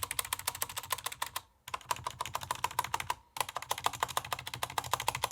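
Fast typing on a SteelSeries 6Gv2 mechanical keyboard with linear Cherry MX Black switches and ABS keycaps: rapid keystroke clacks in three runs, broken by short pauses about one and a half and three and a quarter seconds in.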